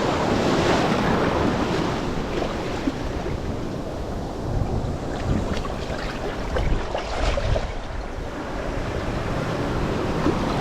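Waves washing around a wader in knee-deep surf, with wind buffeting the microphone in a steady low rumble.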